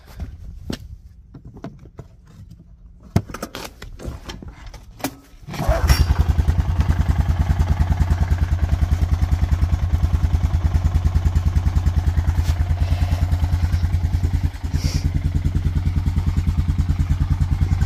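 An old Honda's engine starts after a few seconds of clicks and knocks, catching about six seconds in. It then idles steadily with an even, rapid pulsing beat and dips briefly once before carrying on. It starts readily and runs well.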